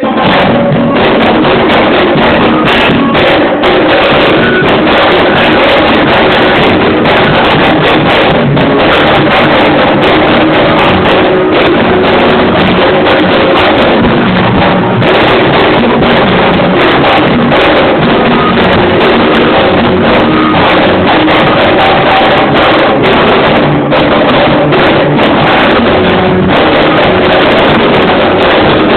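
Live go-go band music, loud and distorted: a drum kit and percussion driving a steady, unbroken groove with other instruments.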